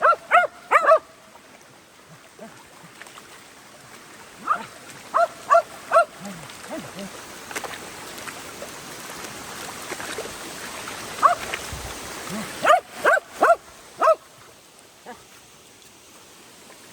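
Dog barking and yipping in short, sharp clusters, a few quick barks at a time, three or four times over, with a creek's running water underneath that swells in the middle.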